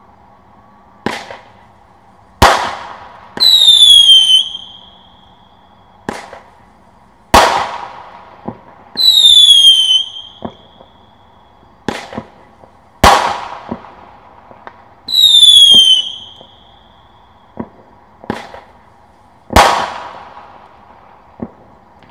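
Small seven-shot consumer aerial firework cake firing: shots launch with a thump and break about a second later with a loud bang, alternating with three whistling shots, each whistle about a second long, starting high and dropping a little in pitch before levelling off.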